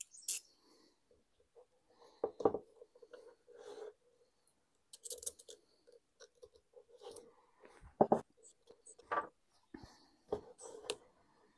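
Handling noise of a carburettor being fitted into a rubber airbox boot on a workbench: scattered light clicks, knocks and scrapes of metal, plastic and rubber, the loudest knock about eight seconds in.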